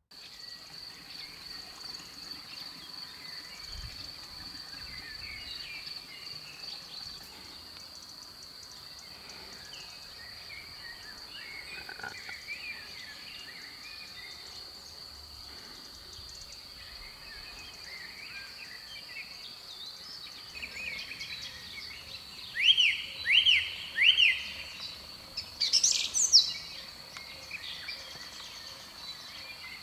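Forest dawn-to-dusk chorus: birds chirping and singing, frogs croaking, and a steady high-pitched trill of crickets. Near the end a bird grows louder, with three quick rising calls about a second apart and then a loud call.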